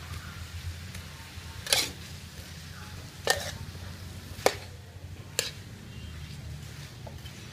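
Metal spatula scraping and knocking against a steel wok while stir-frying vegetables, four sharp clanks a second or so apart, over a steady low hum.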